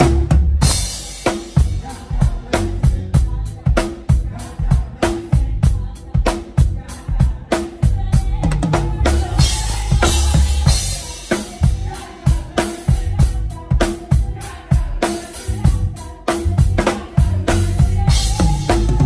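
Acoustic drum kit played live in a busy, fast groove: kick drum, snare and tom hits with cymbals, the cymbal wash swelling about halfway through and again near the end.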